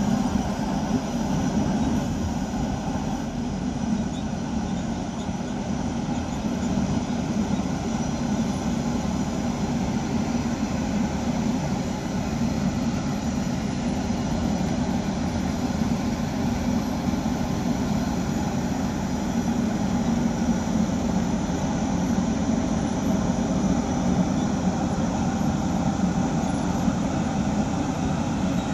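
Heavy diesel construction machinery running steadily, a constant engine noise with no breaks or impacts.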